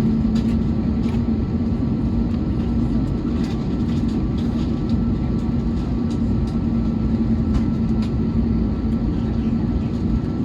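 Steady low rumble inside an Airbus A321neo's cabin on the ground, with a steady humming tone and occasional faint clicks.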